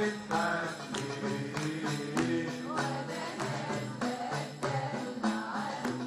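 Male choir singing an Arabic song together, with hand percussion striking a regular beat.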